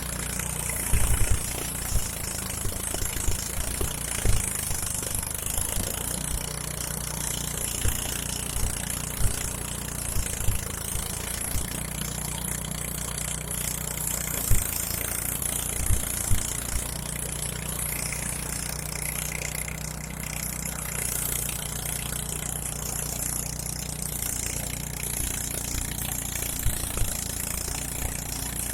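Engine-driven rice thresher running steadily, with a low engine drone, a high hiss, and occasional dull thumps.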